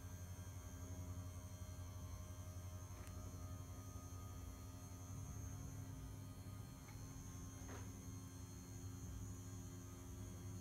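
Electric TV lift motor humming steadily as it raises a flat-screen TV out of a cabinet, with a few faint ticks.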